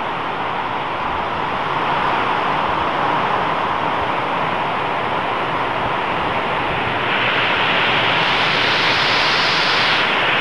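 Heavy rain pouring down in a steady hiss, with gusting wind, growing louder about two seconds in and again about seven seconds in.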